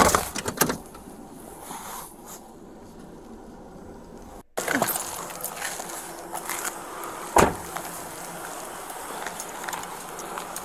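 Body-worn camera handling noise: clunks and rustling as the wearer climbs out of a car, then walking along the roadside over a steady background hum, with one sharp knock about seven seconds in. The audio drops out for a split second near the middle.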